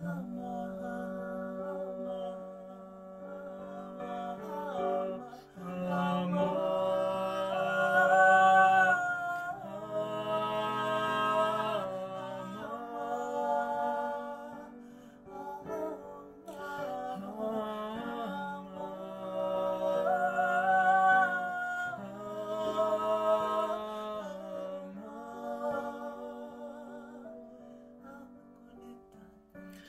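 A woman and a man singing slow, sustained melodic lines together over held chords on a digital piano. The music swells twice, loudest about eight and twenty seconds in.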